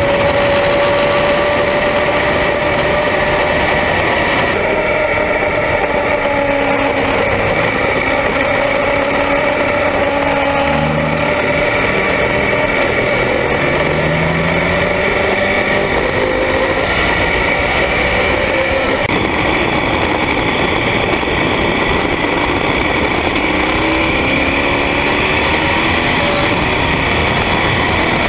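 BMW GS adventure motorcycle running at road speed, heard from a camera mounted on the bike, with heavy wind and tyre noise over the engine. The engine pitch shifts a couple of times, near 5 seconds in and again about two-thirds of the way through.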